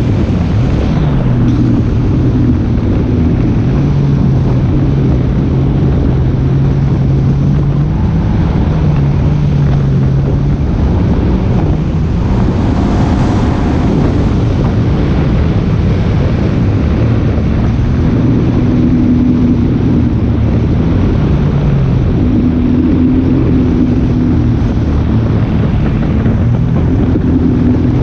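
An engine running steadily, its pitch stepping up and down a little now and then, under heavy wind rushing on the microphone.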